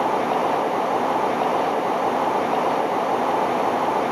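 Steady rushing noise on the flight deck of a Boeing 747-400ERF freighter in flight, mostly airflow over the cockpit with the engines behind it.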